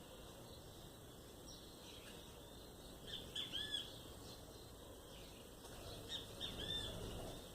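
Bird chirping: two short bursts of quick, arched chirps, one about three seconds in and one near the end, over faint outdoor background noise.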